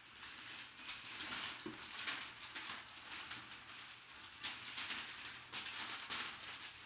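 Packaging being handled: irregular rustling and crinkling with small clicks and taps, coming in uneven bursts.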